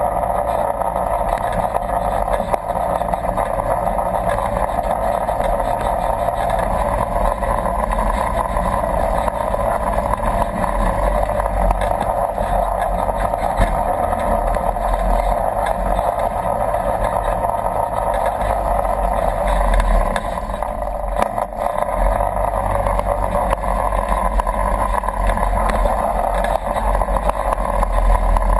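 Polaris RZR 1000 side-by-side's parallel-twin engine running steadily as it drives through a shallow creek, mixed with water rushing and splashing around the vehicle.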